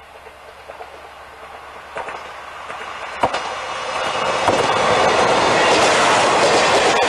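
JNR diesel railcar train approaching and passing close by. Its running noise builds steadily to a loud rush, with sharp clicks of the wheels over the rail joints as it nears.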